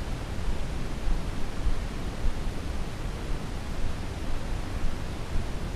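Wind buffeting the microphone: a steady rushing hiss with gusty low rumbling.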